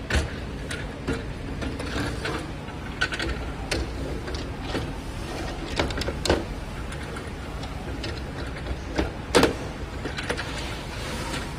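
Scattered clicks and knocks of metal parts being handled as an LED display module is worked out of its aluminium cabinet from the back, over a steady low hum; the loudest knock comes about nine seconds in.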